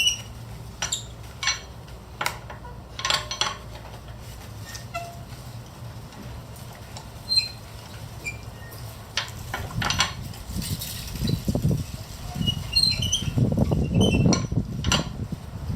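Metal clinks and knocks from a lug wrench working the wheel's lug nuts loose, with a low rumbling scrape in the second half. Birds chirp faintly in the background.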